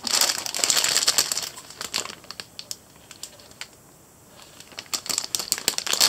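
Clear plastic bag with leather work gloves inside crinkling as hands lift and handle it: two spells of crackling, each a couple of seconds long, with a quieter gap between them.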